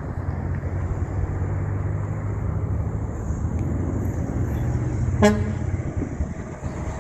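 A big truck's diesel engine droning steadily as it passes, with one short horn toot about five seconds in.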